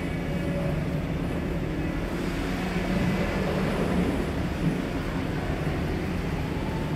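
Steady rumble of a fishing-port auction hall: small market vehicles and machinery running, with a constant low hum and no single standout event.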